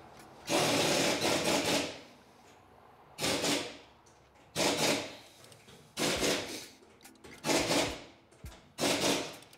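A hand ratchet wrench clicking in six rasping strokes, about one every second and a half, the first the longest, as a 3.6-litre Pentastar V6 is turned over slowly by hand.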